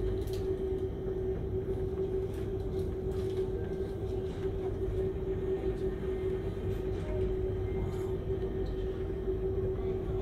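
Steady low rumble with a constant droning hum: ferry engine and machinery noise heard aboard a large car ferry at sea, with a few faint knocks.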